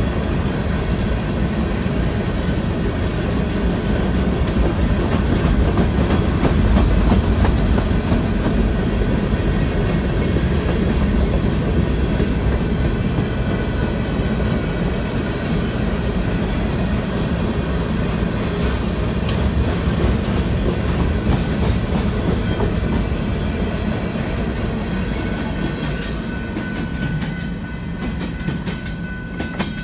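Train cars rolling past, a steady heavy rumble with the clickety-clack of wheels over rail joints. A thin steady whine comes in near the end as the sound eases off.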